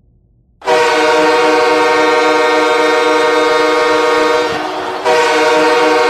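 Milwaukee Admirals goal horn, heard dry without added reverb. It comes in abruptly about half a second in as one loud, steady horn blast, fades briefly just before the five-second mark, then blasts again at full strength.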